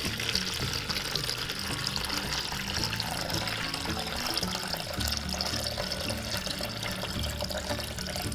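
A steady stream of water pouring into a plastic tub, filling it, with background music underneath.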